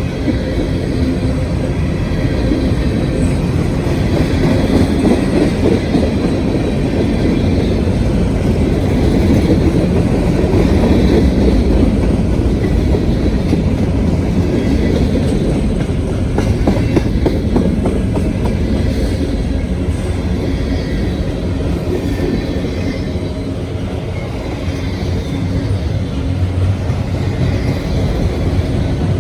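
Freight train rolling past close by: a steady, loud rumble of cars on the rails, with occasional clicks from the wheels.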